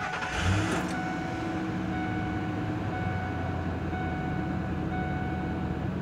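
Ford 5.4-litre V8 starting: a brief crank that catches about half a second in, then settles into a steady idle.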